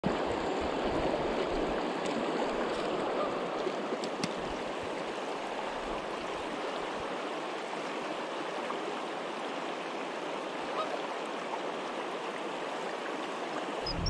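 Steady rush of a river's current flowing over a rippled stretch of water.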